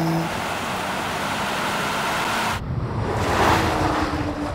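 Rushing wind and road noise from a car at full speed. About two and a half seconds in the sound cuts to a passing car's rush that swells and fades, with a faint engine note falling slightly in pitch.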